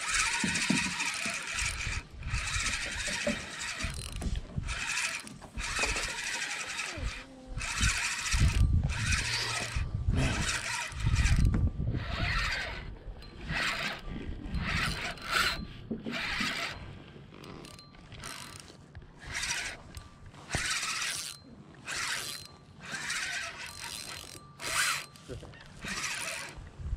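Spinning reel cranked in repeated, uneven bursts while a hooked striped bass is reeled in under load.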